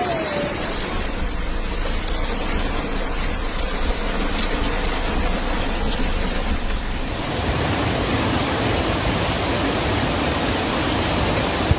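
A steady rush of heavy rain and running floodwater, with a change in its sound about seven seconds in.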